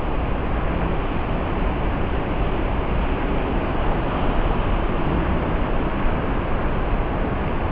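Wind rushing over the microphone together with surf breaking on the shore: a steady rushing noise with a rumble that flickers at the low end, without a break or a distinct event.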